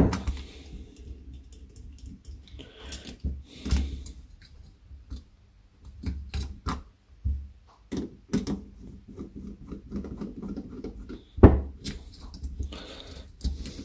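Scattered small metal clicks and taps as the top-cover screws of an Amal Concentric Premier carburettor are undone by hand and the parts handled, with a sharper knock near the end.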